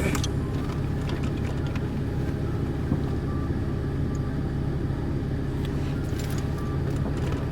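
Ford Mustang engine idling steadily, a low even hum, with a few faint clicks of the dash trim being handled.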